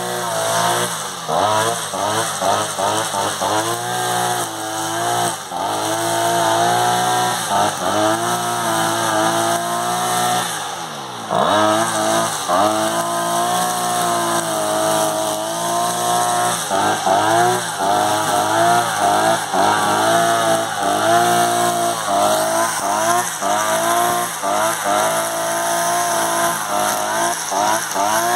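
Einhell GE-BC 43 AS petrol brush cutter's two-stroke engine running while its nylon-line head cuts grass. The engine pitch rises and falls repeatedly as the throttle is opened and eased off, with the deepest drop about eleven seconds in.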